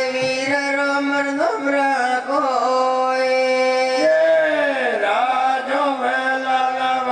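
A man singing a Gavri folk chant into a microphone in long held notes, his pitch sliding down and back up about four to five seconds in.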